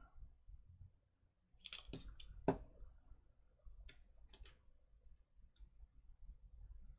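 Small clicks and taps from tweezers, a glue bottle and tiny rubber tires being handled on a work mat: a quick cluster about two seconds in, the loudest near two and a half seconds, then a few fainter ticks. A faint low room hum runs underneath.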